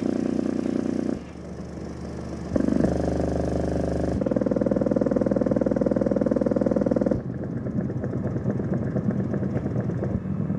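Skar SDR 10-inch subwoofer, powered by two TPA3116D2 chip amplifier boards, playing a frequency test: a series of steady bass tones, each held for one to three seconds before stepping to a new pitch about four times. The tones carry a buzzy edge.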